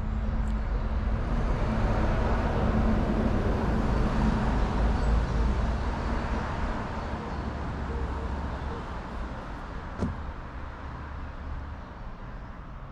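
Main-road traffic: a passing vehicle swells over the first few seconds and slowly fades, with a single sharp knock about ten seconds in.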